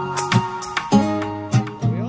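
Background music: acoustic guitar strumming chords, with a fresh strum about every half second.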